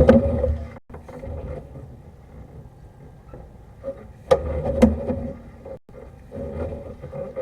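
Sewer inspection camera being pushed along an ABS drain line: three bursts of low rumbling and scraping from the push cable, with sharp knocks at the start and twice more a little past halfway, over a faint steady hum.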